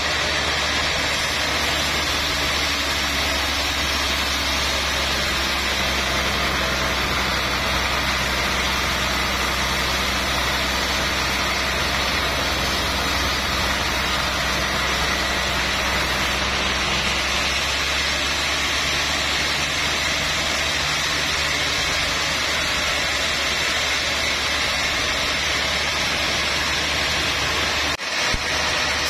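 Sawmill band saw running steadily as its blade rips lengthwise through a large trembesi (rain tree) log, over a low, even drive hum.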